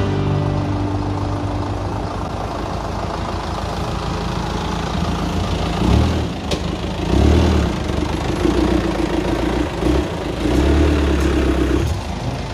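Off-road Jeep Scrambler's engine running steadily, then revved in several bursts from about halfway through as the jeep climbs a short dirt slope.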